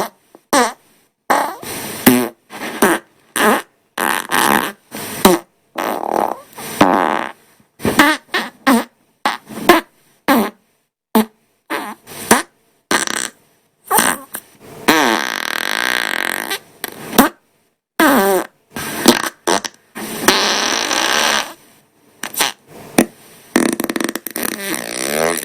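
A rapid string of human farts edited back to back, each starting and stopping abruptly. Most are short blasts of varying pitch, with a few longer, drawn-out ones in the second half.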